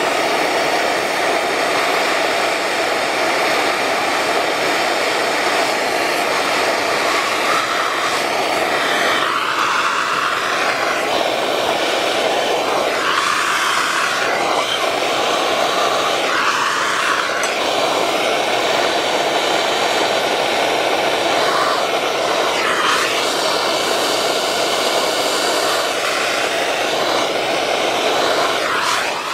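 Propane torch burning with a steady loud hiss as its flame heats a copper pipe elbow for soldering; the torch cuts off at the very end.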